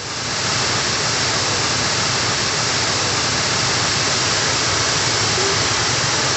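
Waterfall: a steady rush of falling water that fades in over the first half second and then holds even.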